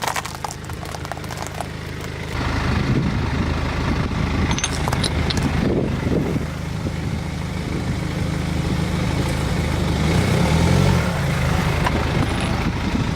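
Car engine running steadily with a low rumble that comes in about two seconds in, with a few short cracks in the middle.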